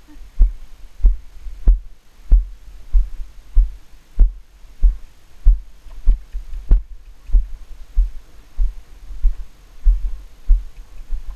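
Rhythmic muffled thuds of a horse's stride on arena sand, about one and a half a second, picked up through a helmet-mounted camera that jolts with each beat.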